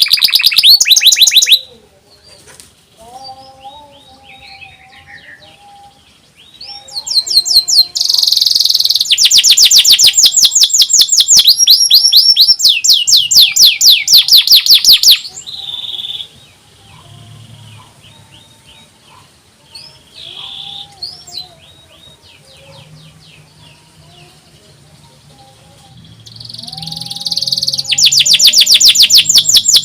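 Domestic canary singing: loud, very fast high trills (the 'nyerilik' song type) in long runs of several seconds, with quieter chirps and calls in the gaps between them.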